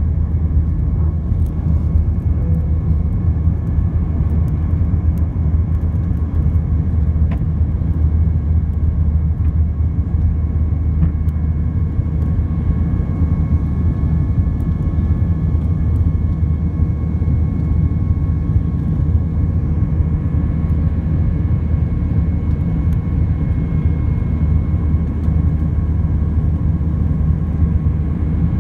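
Airbus A319-100 jet engines and airflow heard inside the cabin during the climb-out after takeoff: a steady low rumble with a few faint steady high tones above it.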